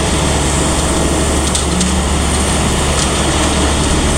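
A heavy engine running steadily, a constant low rumble under a wide even noise.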